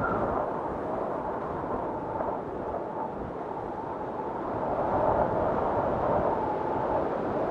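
Steady rumbling noise with a faint wavering whine, growing a little louder about five seconds in.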